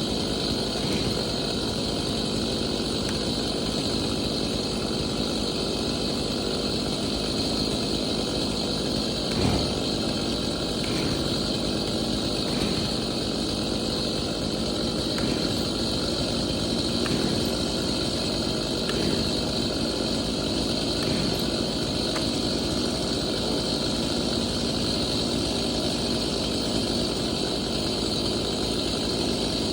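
Two-stroke Stihl chainsaw engine idling steadily, with a single knock about nine and a half seconds in.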